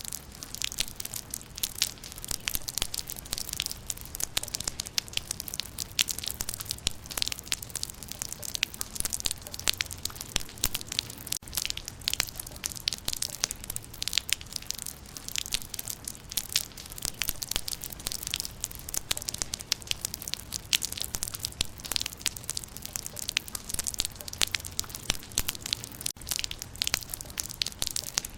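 Rain falling on leaves: a dense, steady crackle of many sharp drop impacts on foliage.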